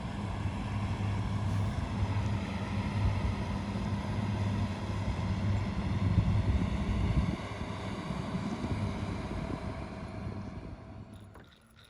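Electric trolling motor (Minn Kota 50) running steadily with a steady whine, moving a small fishing boat, with rumbling wind on the microphone; it dies away near the end.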